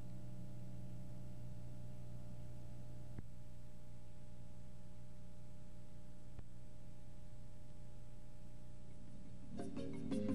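Steady low electrical hum made of several fixed low tones, with two faint ticks about three seconds apart. Music fades in near the end.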